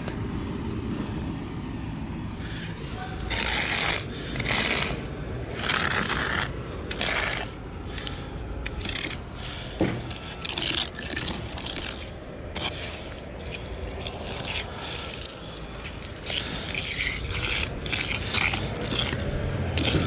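Steel hand edger scraping and rasping along the edge of wet concrete in repeated strokes, a few spaced strokes at first and then quicker back-and-forth strokes in the second half, over a steady low rumble.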